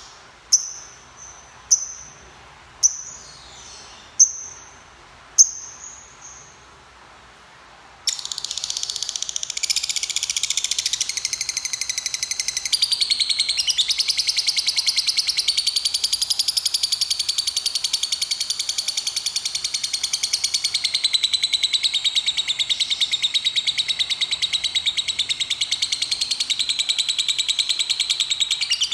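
Lovebird giving five sharp single chirps about a second apart, then, about eight seconds in, breaking into a long unbroken rapid chattering trill: the long 'ngekek' song that lovebird keepers prize.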